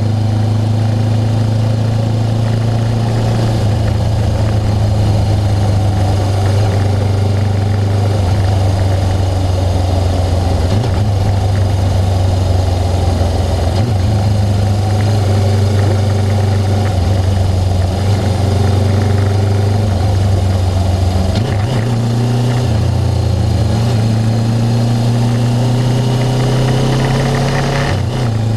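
Suzuki GS500 motorcycle's parallel-twin engine running on a ride, its pitch stepping up and down several times and rising near the end.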